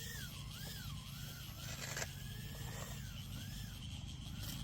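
Emax Tinyhawk 3 tiny-whoop drone's small brushless motors whining, the pitch sweeping up and down again and again as the throttle changes. There is a short hiss about two seconds in.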